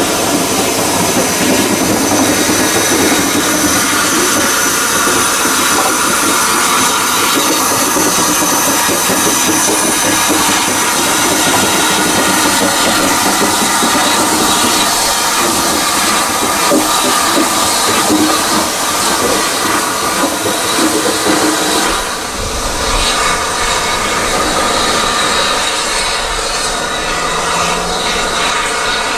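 Steam locomotive 35018 'British India Line', a three-cylinder Merchant Navy class Pacific, moving slowly with its train: a steady hiss of steam over the rumble and clatter of wheels on rails, with a few thin steady squeal-like tones. About three-quarters of the way through the sound changes suddenly and a deeper rumble comes in.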